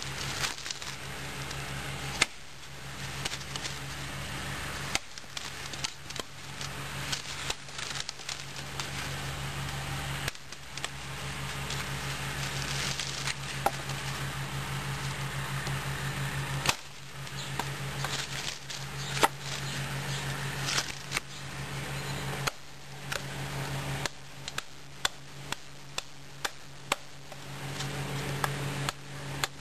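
ST3-F survival knife's blade chopping into wood: sharp knocks at irregular intervals, then a quicker, evenly spaced run of strikes near the end, over a steady low hum.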